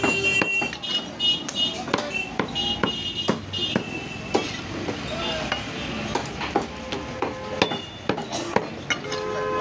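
A large butcher's knife chopping beef on a round wooden chopping block: a quick, irregular run of knocks of the blade striking the wood, about two or three a second.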